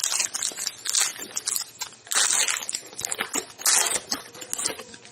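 Crinkling of a plastic-foil trading card pack wrapper being handled and torn open, in a string of sharp rustles, loudest about two seconds in and again near four seconds.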